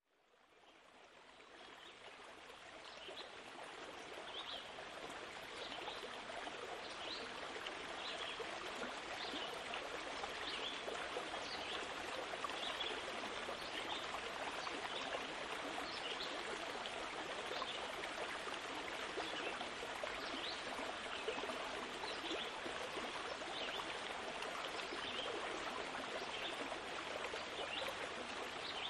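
Flowing water, a steady rush like a stream, fading in over the first few seconds, with faint short high chirps every second or so.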